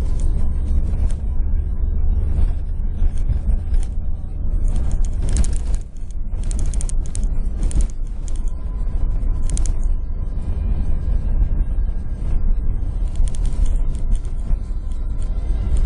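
Vehicle driving over a rough sandy track, heard from inside: a steady low rumble with rattling and creaking from the body and loose parts. There are bursts of clattering over bumps about a third of the way in and again near the end.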